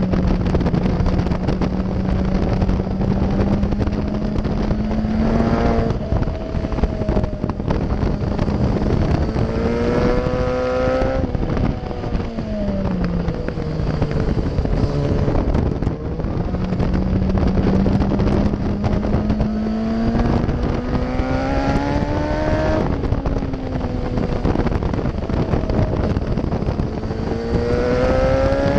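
Yamaha FZ1's inline-four engine at speed on a race track, revs climbing and then falling away several times as the bike accelerates and slows, with a steady wind rush over the microphone.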